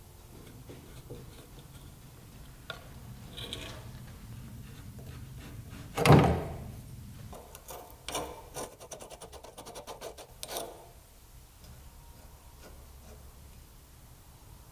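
Hand work with metal tools on an old steel lamp joint clamped in a vise: scraping and rubbing, a single loud metallic clank with a short ring about six seconds in, then a fast run of small clicks as the threaded end piece of the joint is turned by hand.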